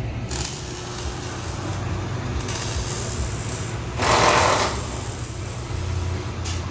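Metalworking tools cutting and working steel exhaust pipe for a mid-muffler delete: a steady low hum under a rasping, scraping tool noise that comes and goes, with a louder burst of noise about four seconds in.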